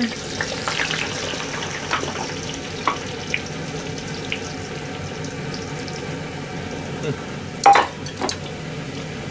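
Battered pieces deep-frying in a pot of hot oil, a steady sizzle throughout. A few light clicks and one louder sharp knock near the end come from handling steel bowls.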